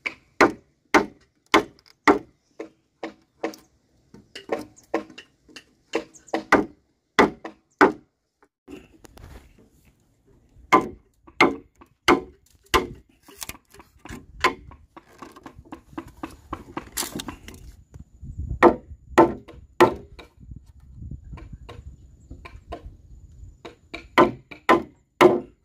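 A tool striking wood in repeated blows, such as an axe or machete chopping timber. A steady run of about one and a half to two blows a second is followed by a pause, then further irregular runs of blows.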